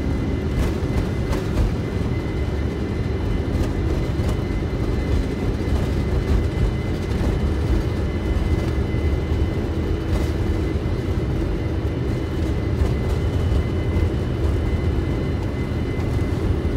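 Steady low rumble of engine and airflow noise inside a Boeing 747-400 freighter's cockpit as the jet rolls down the runway for takeoff, with a faint steady whine over it.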